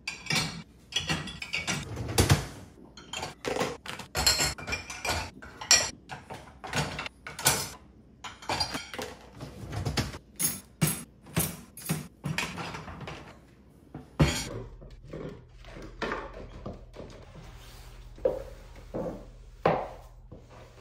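Dishes and cutlery clinking and clattering as a dishwasher is unloaded. After about fourteen seconds this gives way to a low steady hum with a few soft thuds of footsteps on stairs.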